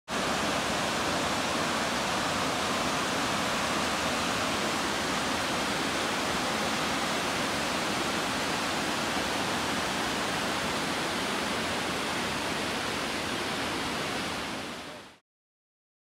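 Steady rushing of waterfalls and fast river water, an even wash of noise that fades out near the end.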